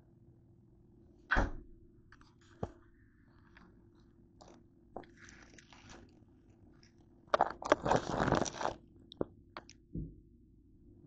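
Kitchen handling sounds: a thump about a second in, a few clicks and light rustles, then a loud crinkling of a plastic food bag for about a second and a half past the middle, ending in a couple of clicks and a soft knock.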